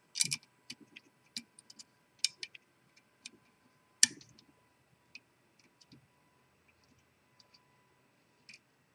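Small irregular metal clicks and ticks of pick wires working the levers of a Ross 100 series six-lever safe lock under tension, with one sharper click about four seconds in. The clicks are frequent at first and grow sparse in the second half.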